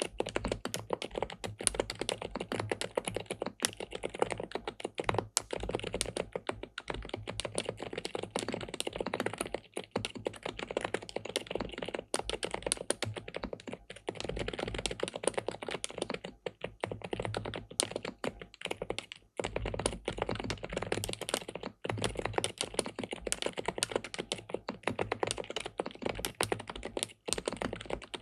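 Typing on an SPM PL87W (Mongdol 87) tenkeyless mechanical keyboard with linear switches on a PC plate: a fast, continuous run of keystrokes, broken by a few brief pauses.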